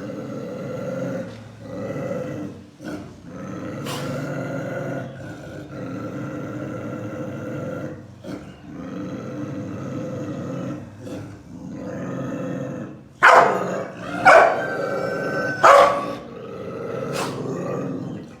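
Chinese rural dogs growling steadily in a long, drawn-out standoff, broken near the end by three loud sharp barks and a fourth smaller one.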